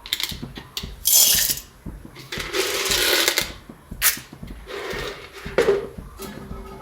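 Kitchen utensils being handled: scrapes and clinks, with a sharp knock about four seconds in.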